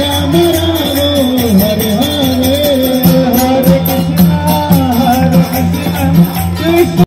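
Devotional kirtan played through loudspeakers: a sung melody over a steady low drone, with hand cymbals striking a quick, even beat.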